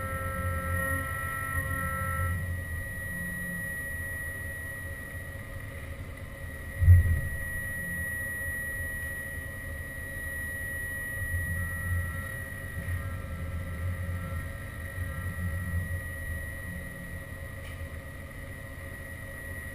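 Haas VF-2 vertical CNC mill running: a steady high whine over a low mechanical rumble, with some of its tones dropping out about two seconds in. A single loud thump comes about seven seconds in.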